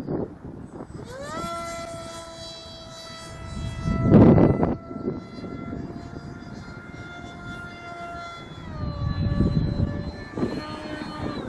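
Pusher propeller and motor of a foamboard RC jet whining in flight. The pitch rises about a second in, holds steady, then drops a little near the end. Wind gusts buffet the microphone with a loud rumble about four seconds in and again near the end.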